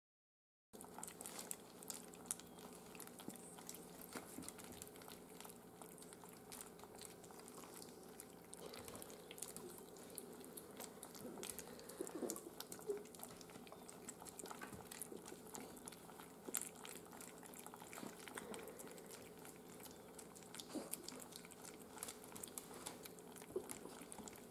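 Miniature schnauzer puppies eating soft, mushy food from a plate: faint, busy wet lapping and smacking with many small clicks, over a steady low hum.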